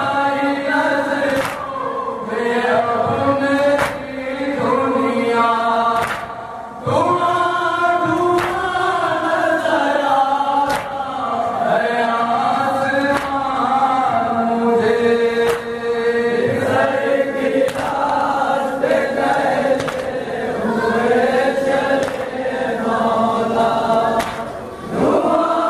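A group of men chanting a noha, a Shia lamentation, in unison in long drawn-out lines, with brief breaks between phrases. Sharp slaps of matam, hands striking chests, come through every second or two.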